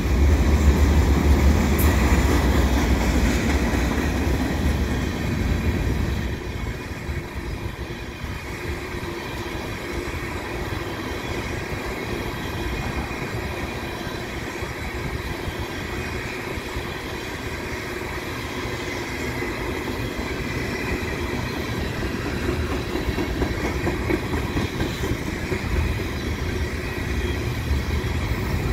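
Freight train cars, covered hoppers and tank cars, rolling past close by: a steady rumble of steel wheels on the rails, louder for the first several seconds.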